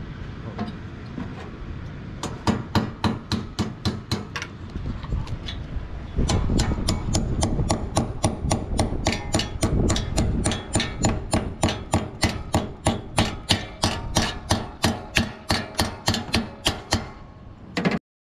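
Rapid, even hammer blows, about three to four a second. A few come first, then a long steady run after a pause about six seconds in, when a steady background noise also rises. It cuts off abruptly just before the end.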